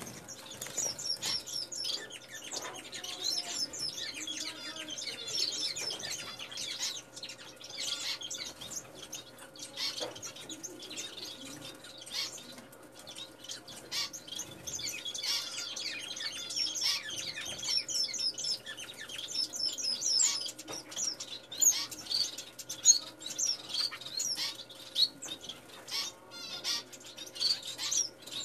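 Finches chirping in a dense, unbroken run of short, rapid high chirps, among them the nestlings in the nest, loudest near the end. A faint steady hum runs underneath.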